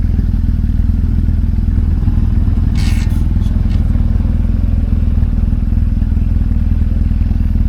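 Motorcycle engine running steadily close by, a constant low rumble with no revving. A short sharp clatter sounds about three seconds in.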